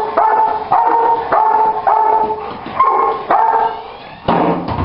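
Dog giving a string of short, high-pitched barks, about two a second, followed by a sharp knock near the end.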